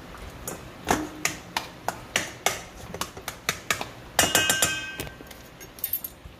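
Metal spoon tapping and scraping ricotta out of a plastic tub into a stainless steel mixing bowl: a string of irregular knocks and clinks, with the bowl ringing briefly a little past halfway.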